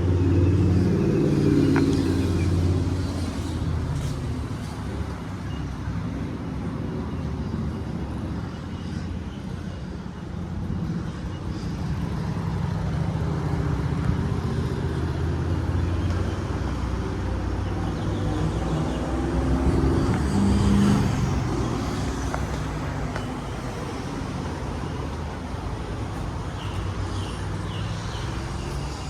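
Motor vehicle engines running and passing, over steady outdoor traffic noise. The engine hum swells near the start and again about two-thirds of the way through.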